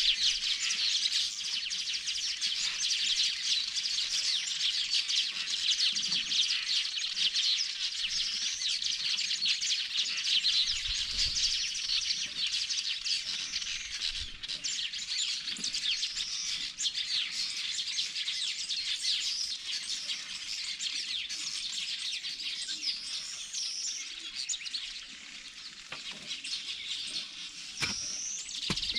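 Dense chorus of many small birds chirping and twittering without a break, with a few faint low thumps underneath.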